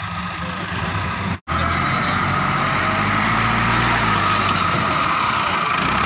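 Massey Ferguson 375 tractor's diesel engine working under load as its front loader bucket pushes into sand, the pitch rising and falling slightly. The sound drops out for a moment about a second and a half in.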